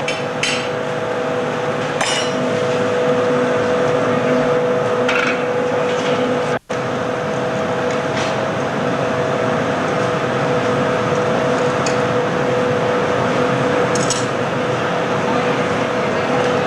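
Steady noise of a hot-glass studio's gas-fired furnace and glory-hole burners and their blowers running, with a steady hum and several light clinks of metal tools and glass. The sound cuts out for an instant a little before the middle.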